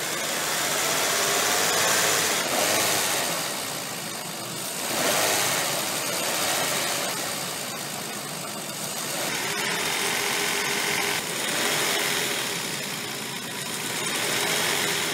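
2001 Infiniti QX4's 3.5-litre V6 engine running at low revs under an open hood, rising and falling in loudness every few seconds. It is being run to push trapped air out of the cooling system through the bleeder after a radiator replacement.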